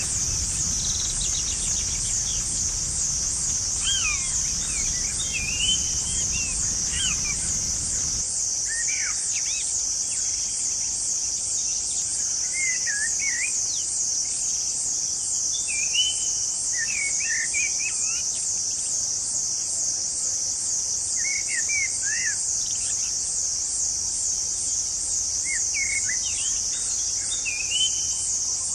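Shrill, fast-pulsing insect chorus in the forest, steady throughout, with scattered short bird chirps and calls over it. A low rumble underneath stops about eight seconds in.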